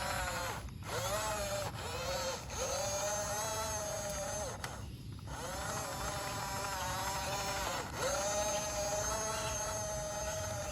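Toy RC excavator's small electric drive motors whining in short runs. Each run starts with a quick rise in pitch, holds steady for one to three seconds, and stops, as the machine is worked from the remote.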